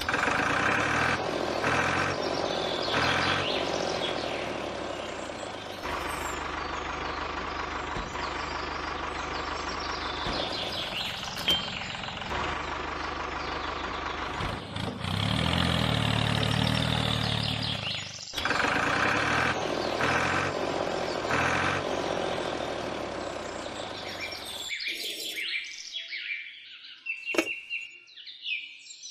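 A tractor engine running, with birds chirping throughout. About 25 seconds in the engine stops, leaving only bird chirps and one light tap.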